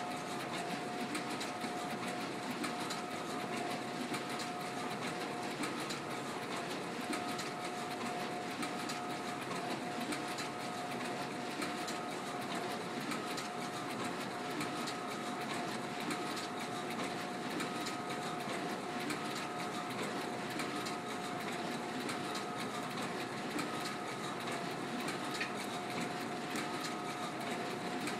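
Ricoh C751EX colour production printer running continuously through a multi-sheet print job, feeding 12x18 sheets one after another. A steady mechanical whir carries a constant whine, with a higher tone pulsing about every second and a half.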